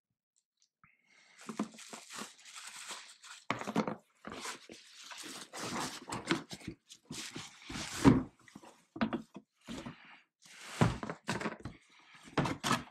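Bubble wrap crinkling and rustling as it is unwrapped from around the transmitter, with cardboard packing being handled and several knocks and thuds, the loudest about eight seconds in. It starts after a second or so of quiet.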